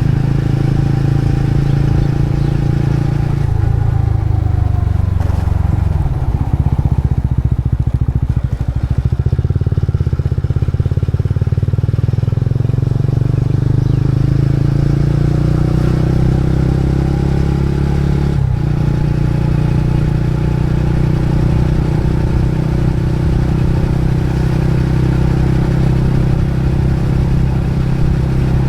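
Motorcycle engine heard while riding. The engine note drops a few seconds in and runs low and uneven for a while. It then climbs steadily as the bike speeds up, breaks off briefly a little past the middle, and settles into steady cruising.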